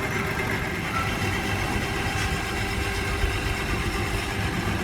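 A machine running steadily with an even, unchanging hum, typical of workshop machinery such as a motor-driven machine at work.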